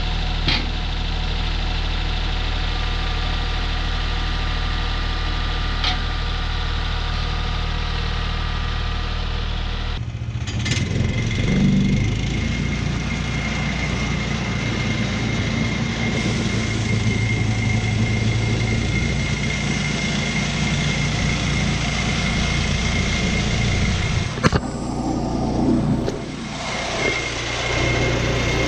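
Portable bandsaw mill's small gasoline engine running steadily, its note changing about ten seconds in, when a steady high whine joins it. A few sharp clicks or knocks sound over it, the loudest near the end.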